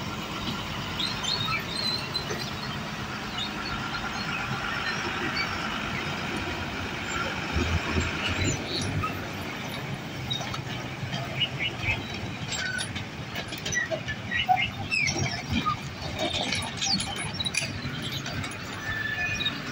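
Road traffic crossing a railway level crossing: motorcycles, a bus and a heavy truck passing over the tracks. A drawn-out high squeal runs through the first several seconds, and short high chirps and squeaks follow in the second half.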